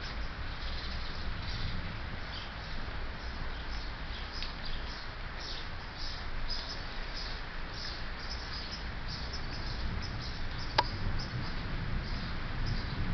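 Steady rain falling, with small birds chirping over it again and again; a single sharp click about eleven seconds in.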